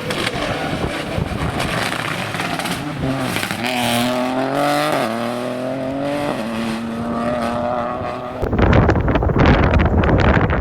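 Rally car approaching at speed, its engine revving and rising and falling in pitch through gear changes. About eight seconds in, it passes close by in a loud rush of noise.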